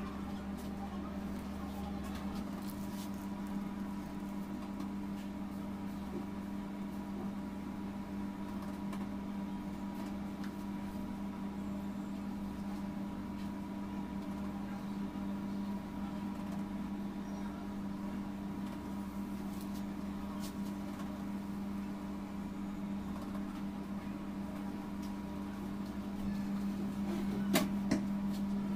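Steady, even hum of a running electrical appliance or motor, with a few small clicks near the end.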